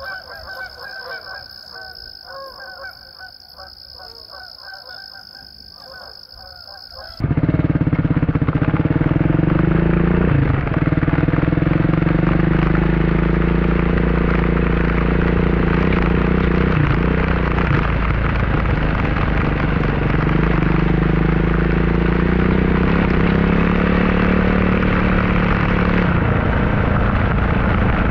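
A fainter stretch with a steady high whine gives way, about seven seconds in, to a sudden loud single-cylinder dual-sport motorcycle engine. The engine runs steadily under way, its pitch dipping briefly a couple of times as the throttle changes.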